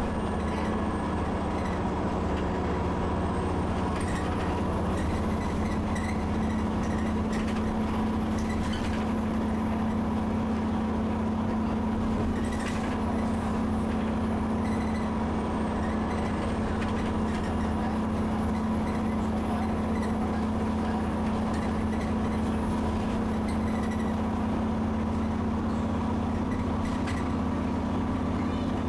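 Alexander Dennis Enviro 400 double-decker bus heard from inside the passenger cabin, its diesel engine pulling hard at speed with a steady drone. A thin high turbo whistle slowly rises and falls over it, the bus's very nasty wheezing turbo, and a few brief rattles come from the body.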